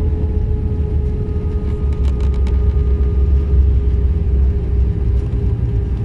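Cabin noise of an Airbus A320-233 in its landing roll on the runway, ground spoilers up: a loud, steady low rumble of the wheels and engines with a constant hum running through it. A few faint rattling ticks come about two seconds in.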